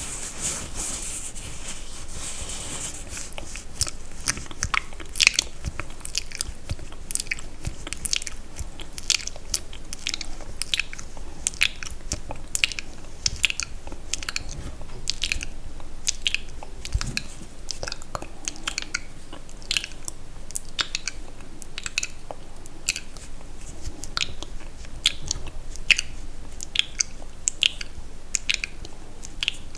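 Close-miked wet mouth sounds: sticky, irregular clicks and smacks of lips and tongue, several a second.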